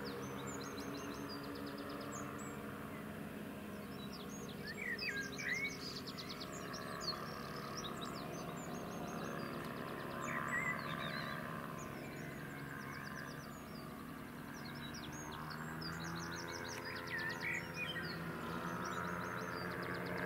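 Faint steady drone of two powered paragliders' propeller engines flying overhead, with small birds chirping and singing throughout.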